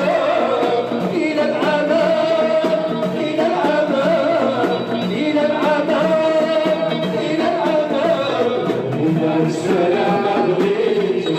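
Live music: a singer with instrumental accompaniment, playing continuously.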